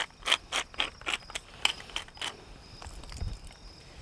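Hand-twisted pepper grinder, its mechanism clicking and crunching peppercorns in a quick run of about four clicks a second, thinning out after about two seconds. There is a low thump about three seconds in. The grinder is running low on peppercorns, so it grinds slowly.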